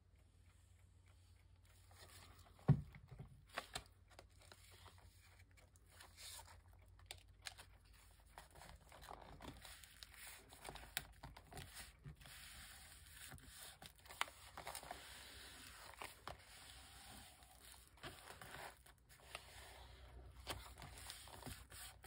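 Paper being handled, rustled and pressed down while a piece is glued into a handmade journal, with scattered light clicks and taps and one sharp knock about three seconds in.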